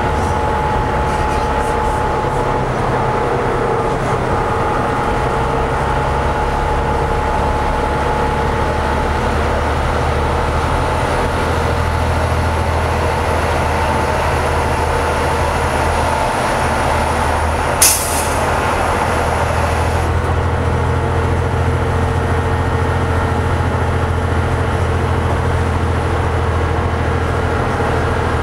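Cabin drone of a 2004 New Flyer DE60LF hybrid articulated bus under way: its Caterpillar C-9 ACERT diesel and GM-Allison EP50 hybrid drive running steadily, a low hum with a steady whine above it. A brief sharp noise about two-thirds of the way through.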